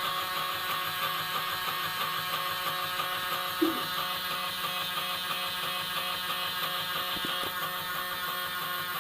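Small electric motor running with a steady hum, with one short knock about three and a half seconds in.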